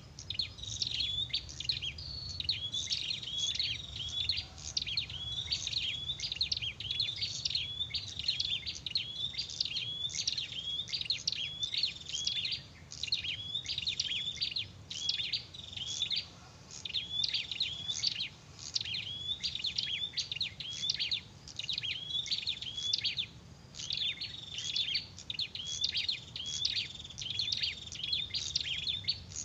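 Prinia (prenjak) calling without let-up: sharp, rapid chirps repeated over and over.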